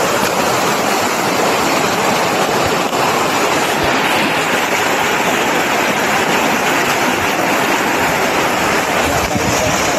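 Fast-flowing river water rushing and churning, a loud, steady rushing noise.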